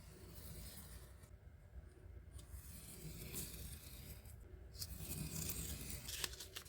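X-Acto knife blade drawn along a metal ruler, slicing through printer paper in about three long strokes with short pauses between them.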